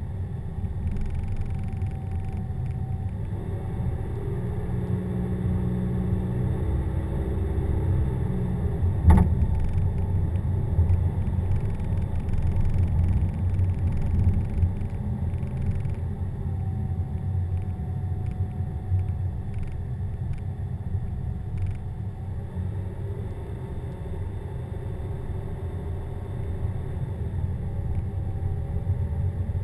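Car driving on a paved road, heard from inside the cabin: steady low engine and road rumble. A single sharp knock about nine seconds in.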